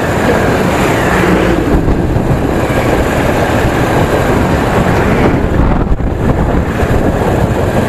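Bajaj Pulsar 220F motorcycle riding at speed: a steady, loud rush of wind on the microphone mixed with engine and road noise.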